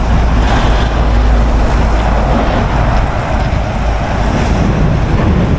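Loud, steady rush of wind on the microphone mixed with a low rumble of road traffic, heavy trucks going by.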